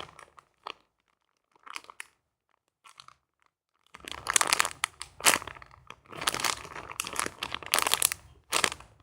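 Crinkling, crackling handling noise close to the microphone, like plastic being squeezed and rustled: a few short crackles at first, then dense, continuous crinkling from about four seconds in.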